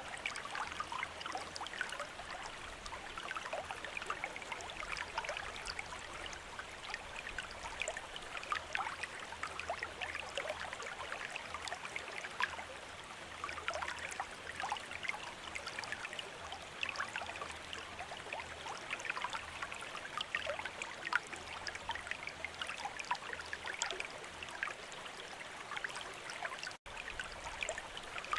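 Water from a bamboo fountain spout trickling and splashing steadily into a basin, with many small droplet splashes. The sound drops out for an instant near the end.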